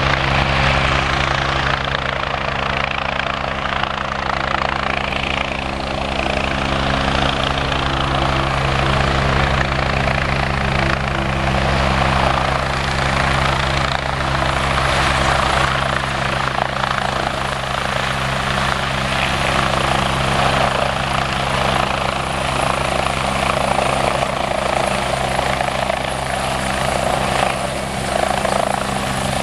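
Westland Wasp helicopter hovering low, its rotor beat and Rolls-Royce Nimbus turboshaft running steadily, with a thin high turbine whine over it.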